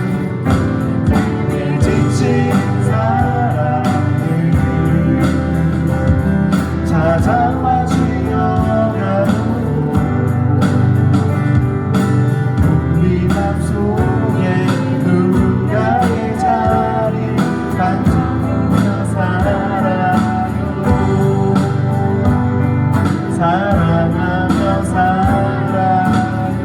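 Live band music: a song played with guitar and a steady beat, with a voice singing the melody.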